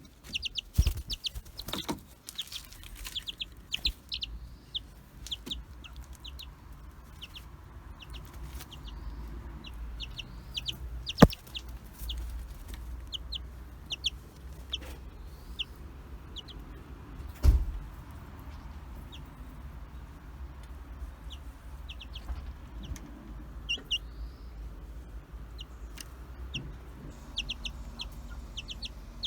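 Baby chicks peeping: short, high, downward peeps in quick runs, several a second. Two sharp knocks cut through, the louder near the middle and a duller thud a few seconds later.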